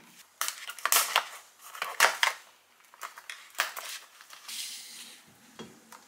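A clear plastic meat tray and its wrap being handled on a kitchen counter: a series of short, sharp crinkles and clatters, loudest about one and two seconds in.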